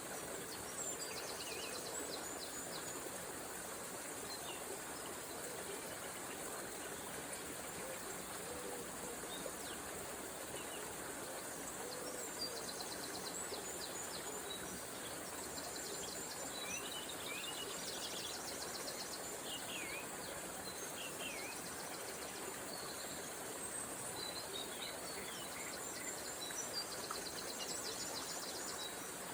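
A small river flowing steadily, with songbirds singing over it in the dawn chorus: scattered chirps and whistled phrases, and quick high trills now and then.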